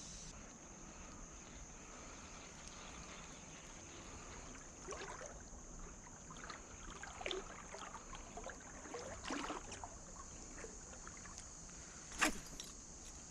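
Faint steady hiss of outdoor background noise with scattered soft rustles and light knocks, and one sharp click about twelve seconds in.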